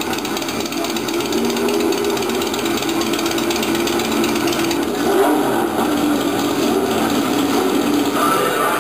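An engine running steadily, its pitch wavering a little.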